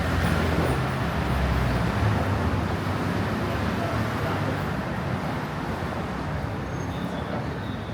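A motor vehicle passing on a city street with a low engine rumble, loudest in the first couple of seconds and then fading away, over general street noise.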